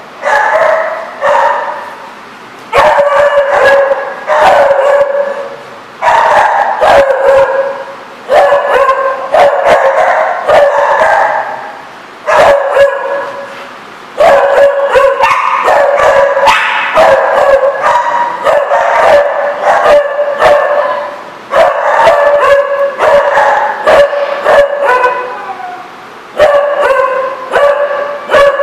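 A dog barking loudly over and over, drawn-out barks coming in quick runs separated by short pauses.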